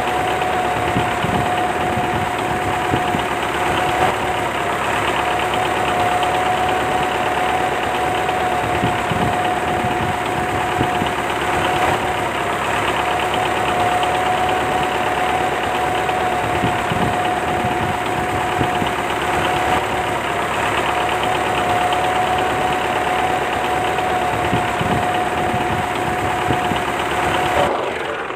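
Small electric motor of a homemade model tree-cutting machine running steadily with a high, even whine and rattle, cutting off right at the end.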